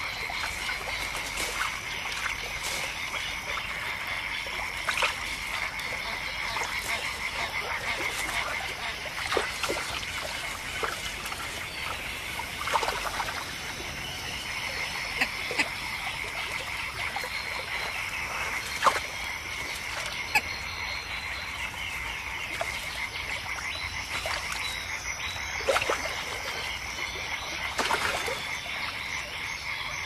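Frog chorus at a pond: a steady high-pitched calling with many short, sharp croaks and clicks scattered over it.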